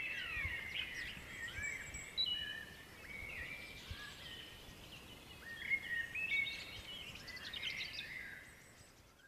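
Woodland songbirds singing: a dense run of overlapping chirps and short whistles, fading out near the end.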